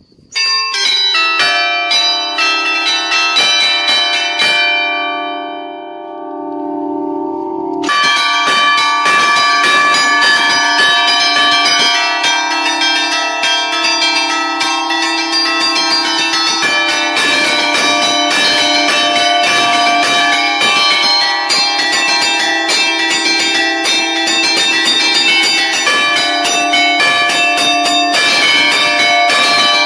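Five-bell church chime in D, cast by Barigozzi in 1952, played by hand from a lever keyboard in the allegrezze style, with the clappers struck against stationary bells. A few strikes ring out and fade over the first several seconds. From about eight seconds in, several bells are struck in a rapid, continuous flurry.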